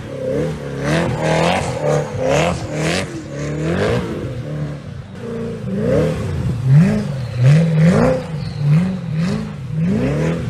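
Supercar engine revving hard in repeated blips, its pitch rising and falling over and over about one to two times a second, as the car drifts in circles on snow.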